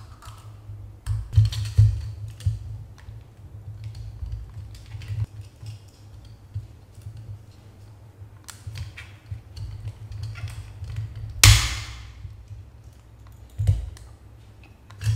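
Irregular clicks, taps and scrapes of a screwdriver and fingers on the plastic housing of a pan-tilt Wi-Fi camera, prying at the snaps that hold its small motor in place. About eleven and a half seconds in comes one louder, sharper crack.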